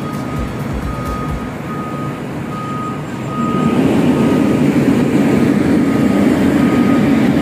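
Heavy construction machine, likely one of the big cranes, with its reversing alarm beeping at one steady pitch about once every three-quarters of a second over its engine. The engine gets louder about three seconds in, and the beeps are masked for a while before they come back near the end.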